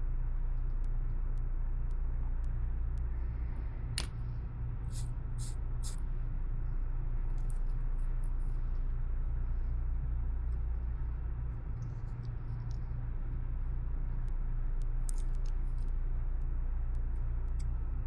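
A steady low electrical hum, with scattered small clicks and a few short sharp ticks, clustered about four to six seconds in and again near the end.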